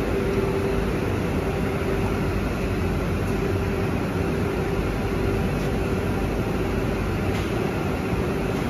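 Steady drone of factory machinery running in the workshop, with a constant hum in it. A few faint clicks come through as the motor and its mounting plate are handled.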